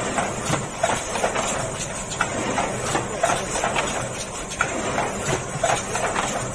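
Automatic mailer-box forming machine running, with repeated mechanical clacks over a steady running hum as it folds carton blanks.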